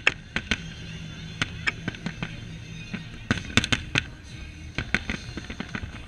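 Aerial firework shells bursting in an irregular string of sharp bangs, with a dense cluster of bangs about three and a half seconds in.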